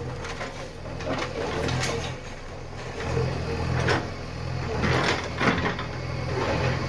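JCB backhoe loader's diesel engine running steadily as it demolishes a brick building, with several knocks and crashes of falling bricks and masonry.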